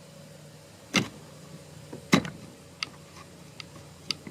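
Clicks and light knocks from handling a trimmer's plastic recoil starter pulley while pushing a new pull cord's knot into its slot: a knock about a second in, a louder one just after two seconds, then a few fainter ticks, over a low steady hum.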